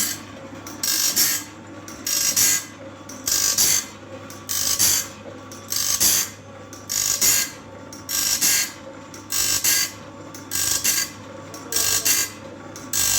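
Automatic band sawmill blade sharpener grinding the blade tooth by tooth: a burst of abrasive grinding from the wheel about every 1.2 seconds as each tooth is fed under it, over the steady hum of the machine's motor.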